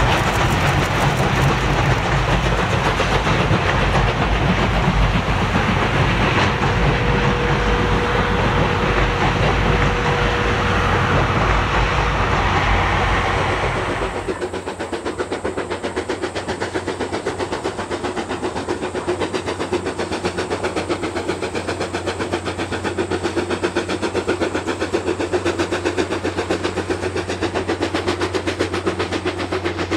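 C56 steam locomotive hauling 12-series passenger coaches: a heavy, even rumble as the train crosses a steel girder bridge, with a steady high note held for several seconds in the middle. About halfway through the sound changes to the train running more distantly across open country, with a fast regular clatter.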